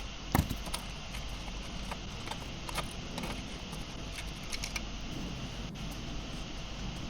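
Small metallic clicks and taps from handling the screws and metal hinge of an oven door with a screwdriver, with one sharp, louder click about a third of a second in, over a steady background hum.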